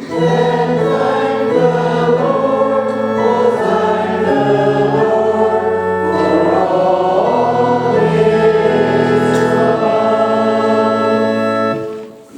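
A choir singing a hymn in harmony: sustained chords moving step by step, ending on a held final chord that dies away near the end.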